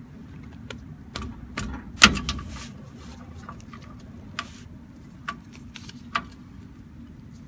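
Socket wrench on the rear differential drain plug of a 1985 Toyota pickup being worked loose: scattered metallic clicks and clanks of the tool, the loudest and sharpest about two seconds in.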